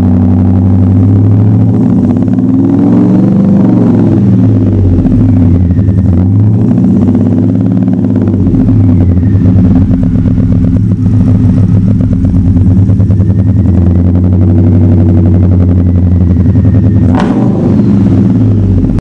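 Whipple-supercharged 6.2-litre V8 of a 2013 Ford SVT Raptor running through long-tube headers and a Magnaflow-muffled Roush exhaust, revved several times, the pitch rising and falling between steady running. A single sharp crack comes near the end.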